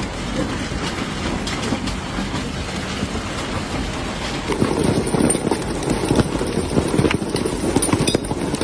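Hailstones pelting down in a dense, rapid clatter of many small impacts. About four and a half seconds in, the clatter grows louder and heavier.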